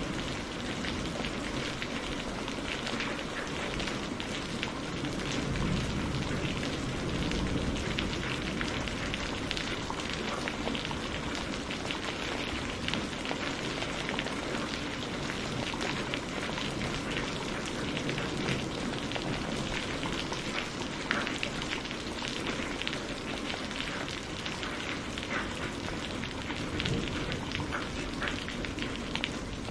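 Steady rain falling and pattering on hard surfaces, with many small individual drop ticks over an even hiss.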